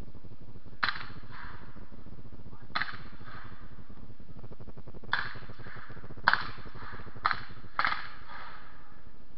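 Black-powder guns fired at a skirmish firing line: six separate, irregularly spaced shots, two of them close together near the end, each followed by a short echo.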